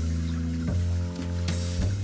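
Background music with sustained deep bass and chord notes that change every second or so, and a sharp hit about one and a half seconds in.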